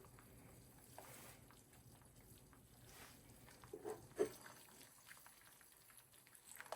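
Faint sizzling of eggs frying in butter in a pan, with two short low voice-like sounds about four seconds in.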